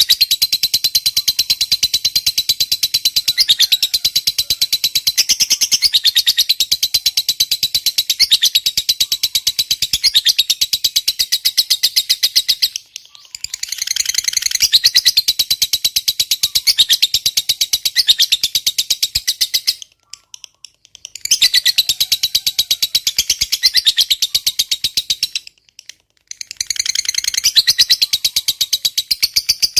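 Lovebird 'ngekek panjang': long runs of very rapid, high-pitched chattering chirps. The chatter breaks off briefly a little before the middle, pauses for about a second around two-thirds through, and stops again briefly near the end before resuming.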